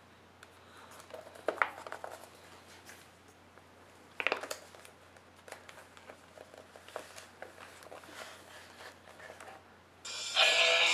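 Glossy magazine pages being handled and turned, with two louder page flips about a second and a half and about four seconds in. About ten seconds in, the video-in-print insert's built-in speaker starts playing music.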